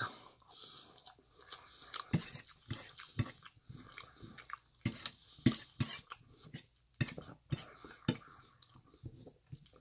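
Metal fork clinking and scraping in a stainless steel bowl, mixed with chewing, as irregular small clicks and mouth noises.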